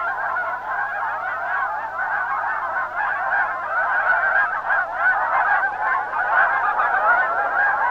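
A large flock of geese-like waterfowl honking in flight, many calls overlapping into a continuous chorus.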